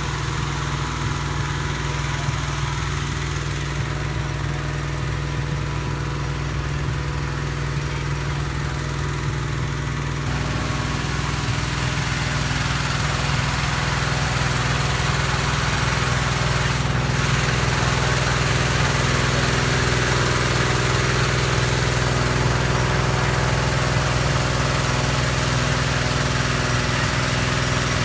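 Small petrol engine driving a hot air balloon inflator fan, running steadily. It gets louder, with more rushing air, from about ten seconds in.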